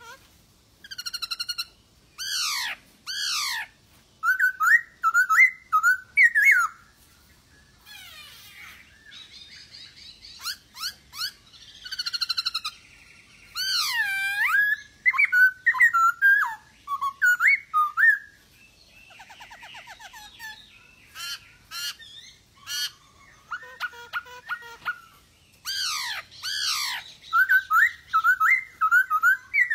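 Male black-throated laughingthrush (poksay Hongkong) in full song: loud whistled phrases of sweeping, rising and falling notes, delivered in bursts with short pauses and some rougher chattering passages between.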